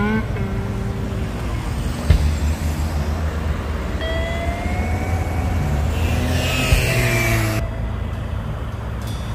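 Street traffic: cars and a city bus driving past, a steady engine rumble with tyre noise on the road. A single thump comes about two seconds in, and a slowly rising whine runs through the middle.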